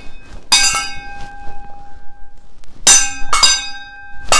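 A stainless steel pan struck by a toddler: four clanging strikes, one about half a second in and three close together near the end, each leaving a ringing metallic tone that slowly dies away.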